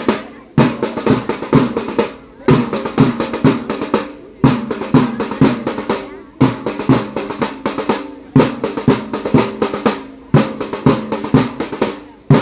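Drum beaten with a stick in a repeating pattern: a strong stroke about every two seconds, then lighter strokes dying away, under children singing a Garhwali folk song for a dance.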